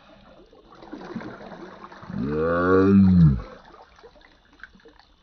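Water sloshing and splashing as a man wading chest-deep hauls a large snakehead up out of the water. About two seconds in, a single drawn-out vocal sound, like a long 'ohh', rises and then falls in pitch for about a second and a half, louder than the splashing.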